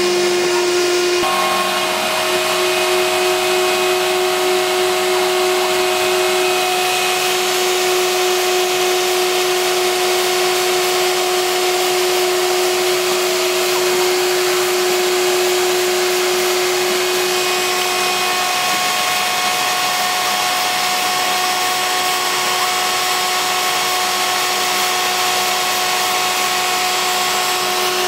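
CNC router's spindle motor running with a steady whine as its bit mills thin plywood, together with the hiss of a dust-extraction vacuum hose at the cutter. The whine's pitch shifts about two-thirds of the way through.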